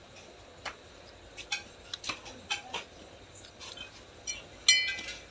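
Light metal clicks and clinks of Honda Shine clutch plates shifting against the centre hub and pressure plate as they are handled, a handful of taps and then one louder ringing clink near the end.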